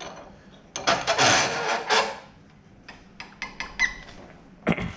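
Bench vise being wound shut on a braided-hose fitting: a rasping scrape that lasts about a second, followed by scattered light clicks and taps.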